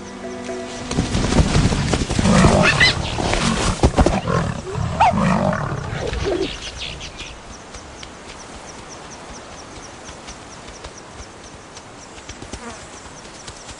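A lioness attacking a cheetah: loud snarls and growls with harsh cries, starting about a second in and dying away after about six seconds.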